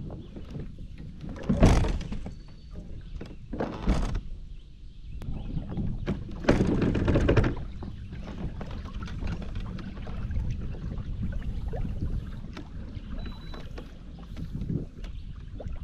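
A fishing kayak launching from a shallow pebbly shore onto the lake, its hull scraping and water sloshing in three loud bursts about 2, 4 and 7 seconds in, over a steady low rumble.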